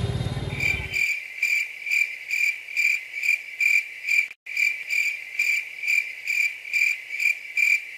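Crickets chirping, evenly spaced chirps about two a second at one high pitch, with the street sound cut away abruptly about a second in and a brief drop-out near the middle: an edited-in crickets effect standing in for silence.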